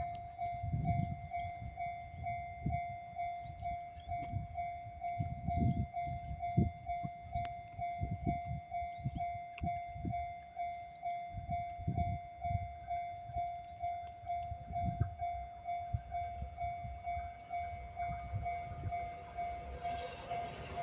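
Japanese level-crossing alarm ringing its repeated electronic 'kan-kan' tone about twice a second, over irregular low rumbles. Near the end the noise of the approaching EH200 'Blue Thunder' electric freight locomotive begins to rise.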